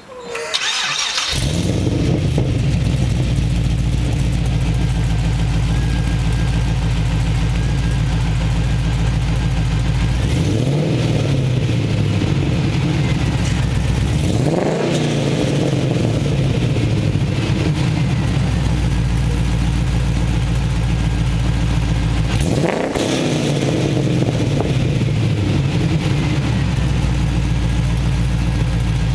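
LS2 6.0-litre V8 in a Nissan 240SX, breathing through 1 3/4-inch long-tube headers, a 3-inch Y-pipe and an Apex-i GT Spec exhaust, fires up about a second in and settles into a steady idle. It is blipped three times, each rev rising sharply and falling back to idle.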